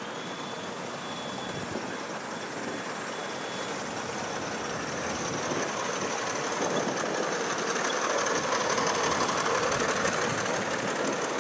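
Large-scale garden model train running along a raised outdoor track: a steady rolling rattle of wheels on rails that grows louder in the second half as the train comes close.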